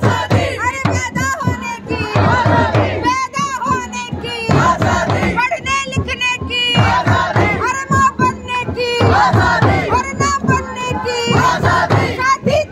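A group of marchers chanting and singing slogans together, beating hand frame drums and a tambourine in a steady rhythm.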